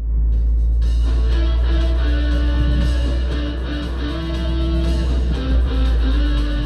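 Background music led by guitar over a deep, steady bass line, starting abruptly.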